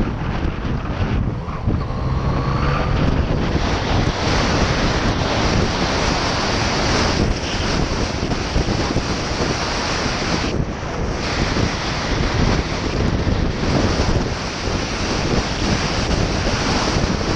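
Heavy wind rushing over a GoPro Session's microphone on a moving motorcycle, a Yamaha FZ-09, nearly burying the bike's engine. A faint rising tone about two seconds in.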